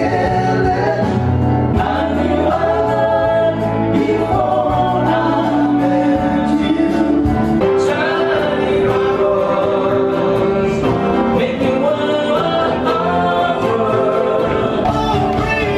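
A live band playing with singing, the voices holding long notes over a steady bass line.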